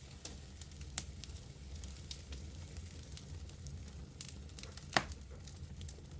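Wood fire burning in a fireplace, with a low steady rumble and scattered crackles; two louder pops about one second in and about five seconds in.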